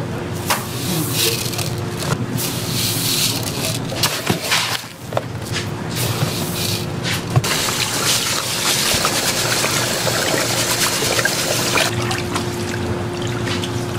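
Water running from a kitchen tap and splashing, with a short break about four to five seconds in, over a steady low hum.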